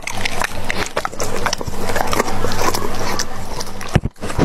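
Doberman pinscher eating off a bamboo plate up close, its chewing and licking making irregular crunching clicks, with a short break about four seconds in.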